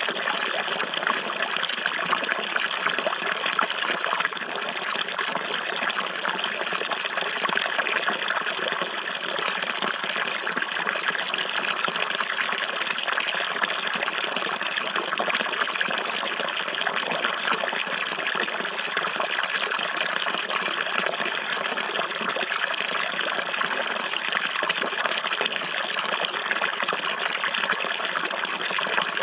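Running water: a steady, even flow of a stream or brook, with no changes or breaks.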